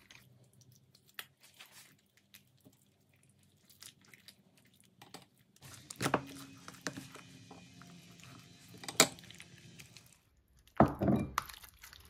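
Quiet hand-handling of a raw chicken being rubbed with sauce, with faint scattered small sounds, then a few sharp knocks and clicks about six, nine and eleven seconds in.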